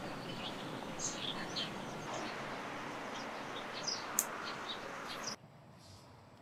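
Birds chirping in short, high notes over a steady hiss of outdoor background. About five seconds in, the ambience drops away abruptly to a much quieter background.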